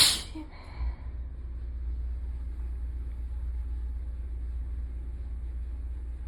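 A person's sneeze at the very start, a short, quieter sound about a second in, then a steady low rumble.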